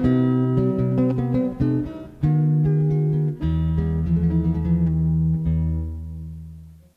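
Background music: a plucked acoustic guitar melody that fades out near the end.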